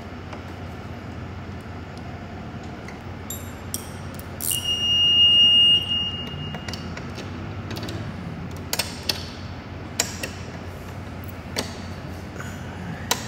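Ratcheting wrench tightening a bolt on a seat-rail bracket, with scattered sharp metallic clicks. About four and a half seconds in, a loud high steady squeal lasts about two seconds.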